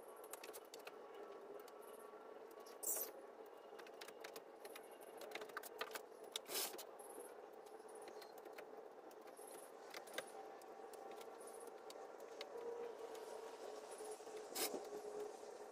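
Small pruning scissors snipping bougainvillea leaves and stems, with rustling of the foliage: scattered sharp clicks, the loudest about 3, 6.5 and 14.5 seconds in, over a faint steady hum.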